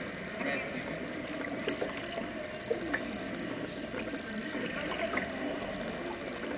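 Kayak paddle strokes dipping and splashing, with water washing steadily against the hull and small splashes scattered through.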